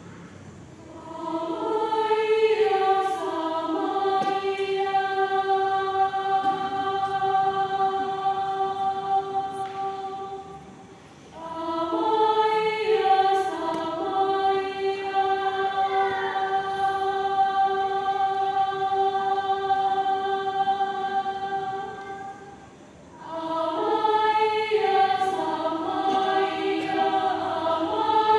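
Mixed choir of men and women singing unaccompanied: long held chords in three phrases, each about ten seconds, with a short breath pause between them. The singing starts about a second and a half in.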